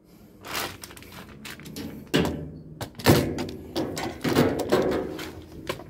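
Irregular knocks, clicks and clatter as a metal spring suspension rod is handled and fitted into the tub and cabinet of a top-load washing machine.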